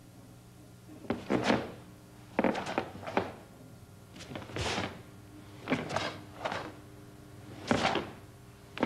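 A karate gi snapping and bare feet striking the mat as the blocks, punches and steps of the kata Pinan Sandan are done: sharp, short strokes about once a second, sometimes two or three in quick succession.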